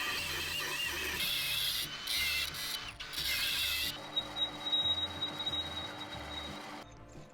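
Background music with a steady beat over a machine's wavering whine; a little past halfway the whine gives way to a steady high tone that stops shortly before the end.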